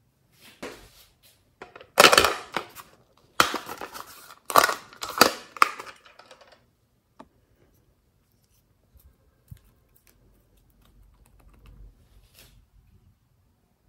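Small glass nail polish bottles and their caps handled by hand: a few clicks, then a cluster of loud, rapid clattering knocks in the first half, then scattered faint clicks and a light rustle.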